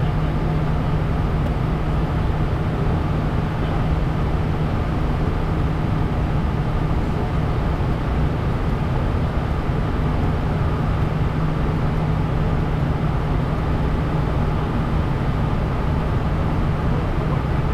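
Steady cockpit noise of a Bombardier Challenger 350 business jet in flight: the rush of air over the airframe and its Honeywell HTF7350 turbofans, with a steady low hum underneath and no change in level.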